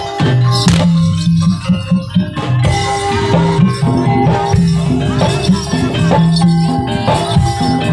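Live jaranan music from a gamelan-style ensemble: drums and rattling percussion over struck, pitched metal notes and held low tones, playing continuously.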